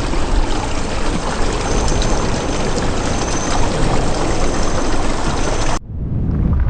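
Water from a pondless waterfall pouring and splashing, a steady rushing sound. Near the end it cuts abruptly to a duller, lower rumble.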